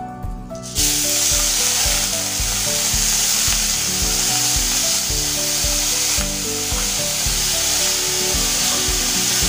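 Gobindobhog rice sizzling as it fries in hot mustard oil in a kadai. The steady sizzle starts suddenly about a second in, as the raw rice hits the oil. Soft background music runs underneath.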